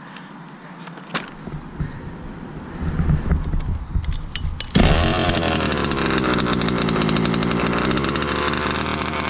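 An HPI Baja's ported ESP 30.5 two-stroke petrol engine being pull-started: the pull-start rattles, and the engine catches suddenly about five seconds in. Its revs waver briefly, then it settles into a steady idle.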